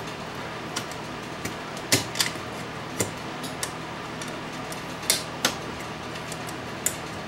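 Needle-nose pliers and metal connectors clicking and scraping against the radio's steel chassis as wires are unplugged from the tuning unit: a handful of scattered sharp metallic clicks, loudest about two and five seconds in. Under them runs the steady hum of a fan, the large workshop heater, which is still running.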